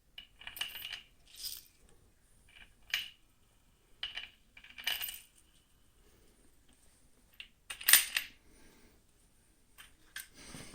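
Small steel parts, Belleville washers and screws, clinking and tapping against each other as they are handled and fitted, in an irregular series of short, ringing clinks. The loudest clink comes about eight seconds in.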